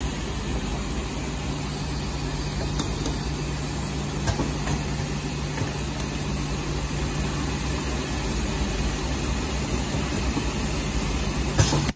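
Ultrasonic mask valve welding machine running with a steady hum and a low held tone, with a few faint clicks and a sharper click near the end.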